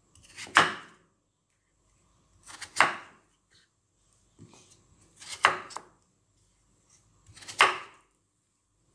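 Kitchen knife cutting through peeled raw potatoes onto a round wooden cutting board, four cuts about two seconds apart.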